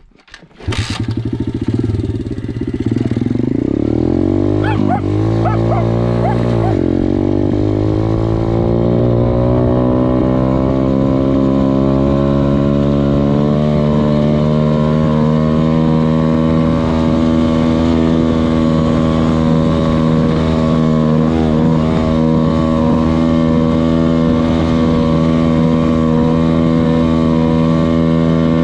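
KXD 612 Pro pit bike engine running: its revs rise and fall a few times about five seconds in, then climb steadily for several seconds as the bike pulls away, and settle into a steady, even run for the rest of the time.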